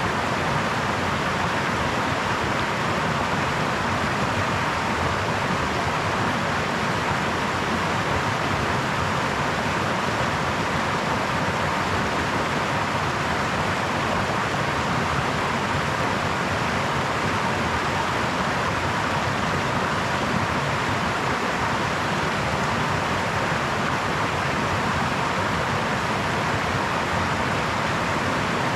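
Small brook flowing: a steady, even rush of running water with no breaks or separate splashes.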